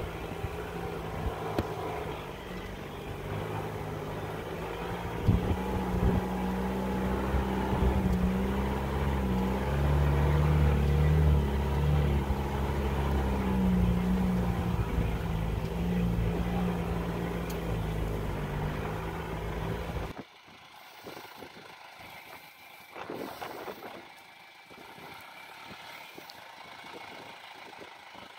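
Cummins R2.8 four-cylinder turbo-diesel in a 1969 Ford Bronco, heard from on board as it drives a snowy trail, its engine speed rising and falling. About two-thirds of the way in, the sound cuts to a much quieter outdoor recording with only faint engine noise.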